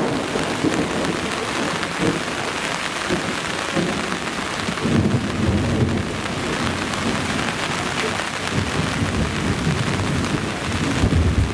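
Heavy rain pouring steadily, with low rumbles of thunder swelling about halfway through and again near the end.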